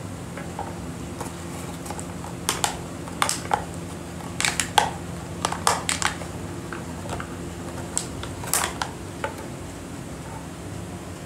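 German Shepherd puppy chewing an empty plastic soda bottle: irregular crackling crunches of the plastic in small clusters, starting a couple of seconds in and thinning out near the end, over a steady low hum.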